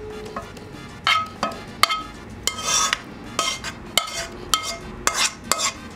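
Metal spoon scraping and clinking against a frying pan as the filling is scraped out into a bowl. The clinks begin about a second in and come irregularly, about a dozen, some with a short scrape.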